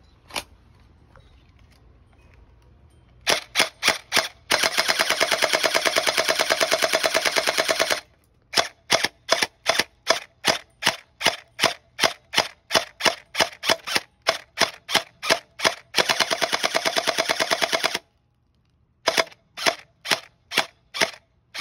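Glock-style gel blaster pistol firing gel balls: a lone shot, then a few single shots and a long full-auto burst. Next comes a string of rapid single shots and a second, shorter full-auto burst, then after a short pause a few more single shots.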